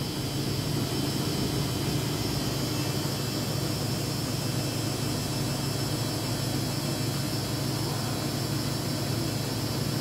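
Front-loading washing machine running steadily in its spin cycle, a constant motor and drum hum, while the drum is over-foaming from too much liquid detergent.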